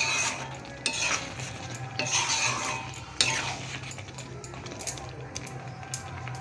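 Metal spoon stirring and scraping a thick chickpea curry in a cooking pan, with clinks against the pan and a soft sizzle; one sharp clink a little after three seconds in.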